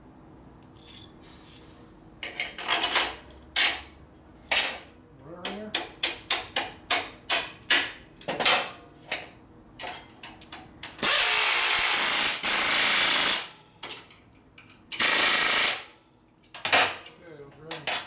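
Metal clinks and taps of bolts, washers and hand tools, then a pneumatic impact wrench runs twice: a burst of about two and a half seconds and a shorter one of about a second. It is snugging up the Ironhead engine's motor mount bolts.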